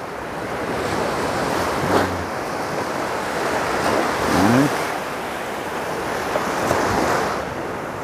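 Sea surf: low waves breaking and washing in the shallows, a steady rushing that swells and eases.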